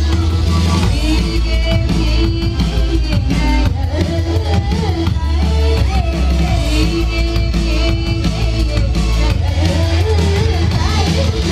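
Live amplified drum and bass band music heard from the crowd: a heavy, steady bass under a wavering melodic line.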